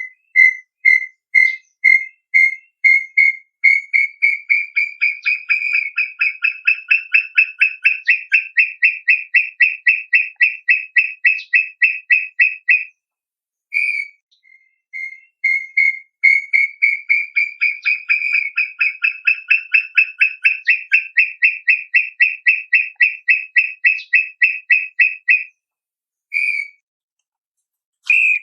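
Brown tinamou song: a long series of clear whistled notes that start about two a second and speed up until they nearly run together, rising a little in pitch. The song is sung twice, with a lone note between the two runs and two more near the end.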